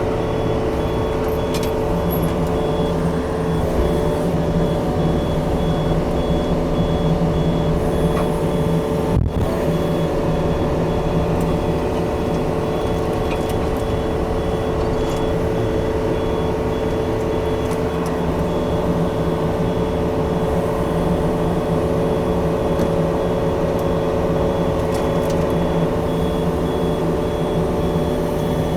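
Diesel engine of a tracked excavator running steadily under work, with its travel alarm beeping in an even repeating pattern. One sharp knock about nine seconds in.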